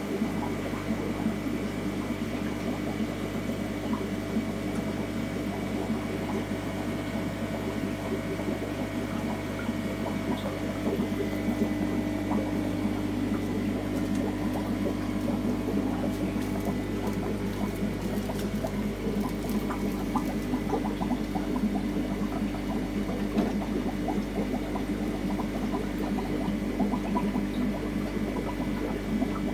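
Aquarium pumps and filtration running in a fish room: a steady low hum under a constant bubbling and trickling of water.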